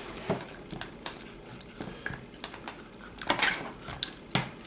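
Light plastic clicks and knocks from a Dromida BX4.18 1:18 RC buggy as its chassis is pressed down and worked on its suspension by hand, with a brief louder scuffing noise about three and a half seconds in.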